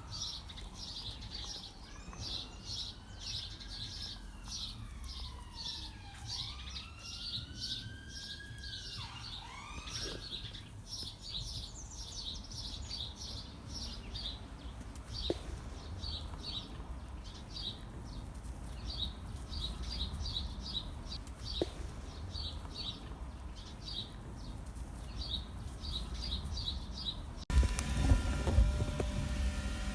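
A garden bird chirping, a short high chirp repeated two or three times a second. A wailing tone rises and falls in the background for several seconds early on, over a steady low rumble. Near the end the sound cuts abruptly to a louder low rumble.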